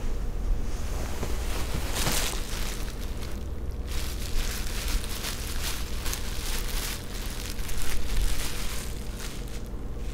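Clear plastic sheeting crinkling and rustling as it is gathered and handled, in a run of short brushy strokes, over a steady low hum.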